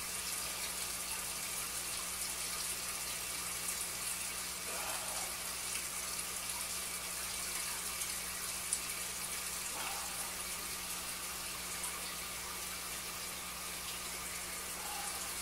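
Steady trickling, bubbling water in a 5-gallon bucket fed by thin plastic tubing, over a faint steady hum.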